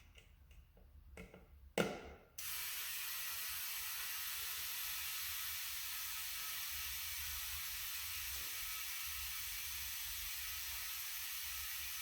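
A few light clicks and a knock, then about two and a half seconds in a steady hiss of compressed air starts and runs on through an air chuck into the tire, reinflating it after a plug repair.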